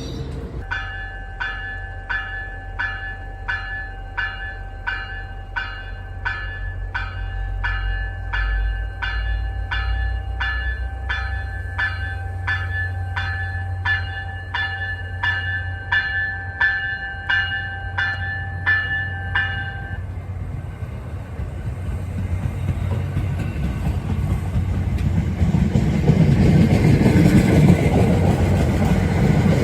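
A railway warning bell ringing steadily at about one and a half strikes a second, over the low rumble of a train. The bell stops about two-thirds of the way through, and the train's running noise then grows louder as it comes closer.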